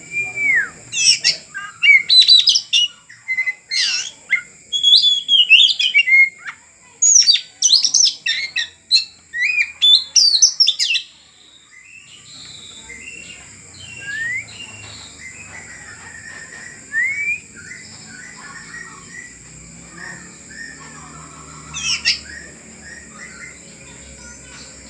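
Oriental magpie-robin (kacer) singing a fast, varied run of loud whistles and chirps for about eleven seconds, then softer scattered notes, with one more loud burst near the end.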